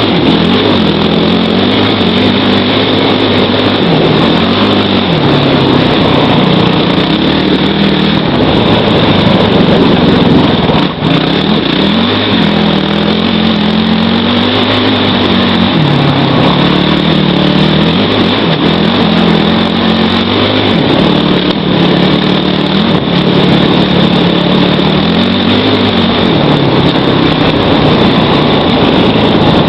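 Kawasaki KFX450R quad's single-cylinder four-stroke engine under way, its note rising and falling again and again as the throttle is worked. The level drops briefly about a third of the way in.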